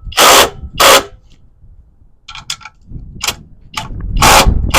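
Small impact wrench hammering in short bursts, running down the clutch bolts: two loud bursts at the start, a few fainter short ones in the middle, and a longer burst near the end.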